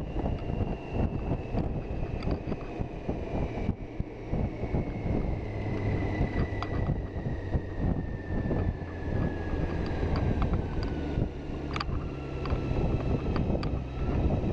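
Wind buffeting the microphone on a moving touring motorcycle, with the engine's low hum underneath. A thin high whine falls steadily in pitch as the bike slows toward a junction.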